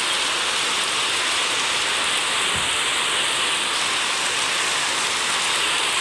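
Heavy rain drumming on a corrugated metal roof and running off its edge in streams, a steady even hiss.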